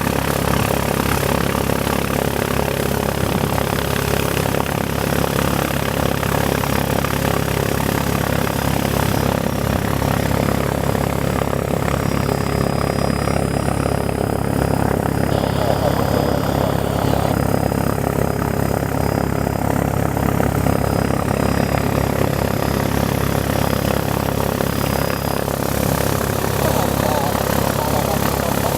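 Mooney M20E's four-cylinder Lycoming engine and propeller running at a steady speed, an even drone with no rise or fall.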